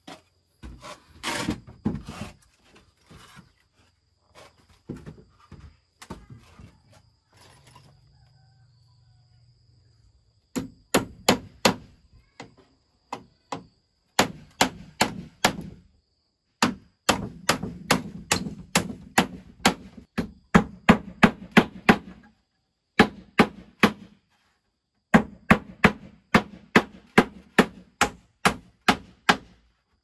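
Rapid chopping strikes on wood, about four a second, in runs of several seconds with short pauses between; before them, scattered knocks and clatter.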